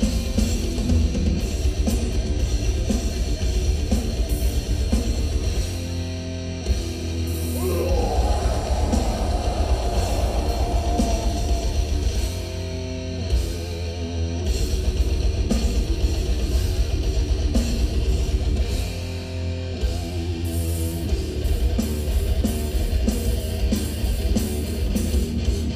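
Old-school death metal played live: distorted electric guitars over fast, dense drumming. The drums and low end drop out briefly three times, about six, thirteen and nineteen seconds in, leaving the guitars ringing on alone.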